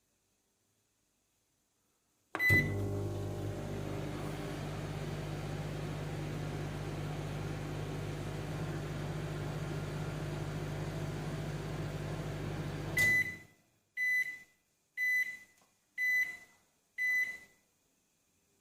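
Lazer microwave oven starting with a beep, running with a steady hum for about ten seconds, then stopping and sounding its end-of-cycle alert of five high beeps about one a second.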